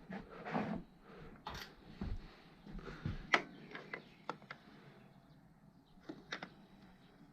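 Hand work on motorcycle parts: scattered clicks, taps and light knocks with some rustling as components are handled and pushed into place, about a dozen irregular ticks with no steady rhythm.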